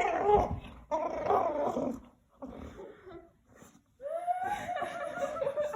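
Chocolate Labrador retriever making odd vocal noises while play-wrestling: two short bursts of grumbling calls in the first two seconds, softer ones after, then one long, slightly wavering drawn-out call from about four seconds in.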